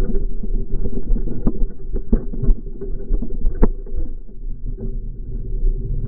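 Ride noise from a camera mounted on a moving rig, slowed down and pitched low by the slow-motion replay: a dense low rumble with many rattling clicks.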